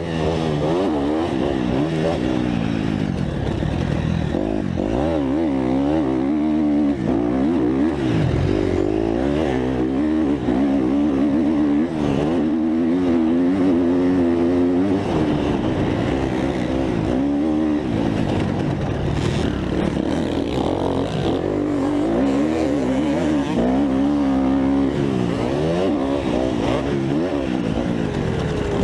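Dirt bike engine heard from the bike itself while it is ridden around a motocross track, its pitch climbing and dropping again and again as the rider works the throttle through straights, jumps and corners, over steady wind and track noise.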